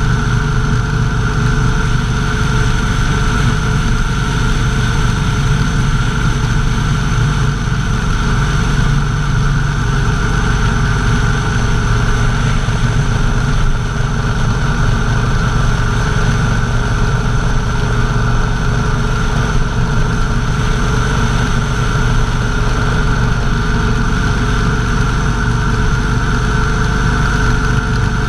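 Motorcycle engine running steadily at cruising speed on a backroad, with road and wind noise under it.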